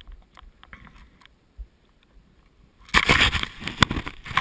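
Skis or a snowboard sliding through deep powder snow: faint scattered clicks at first, then a loud, rough hiss of sliding snow with sharp knocks from about three seconds in.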